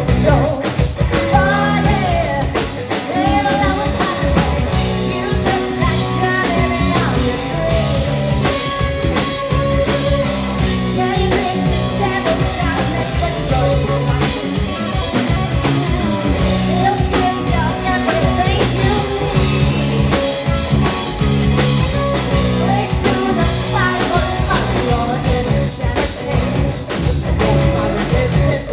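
Live rock band playing with a singer: drum kit, guitars and bass with vocals throughout.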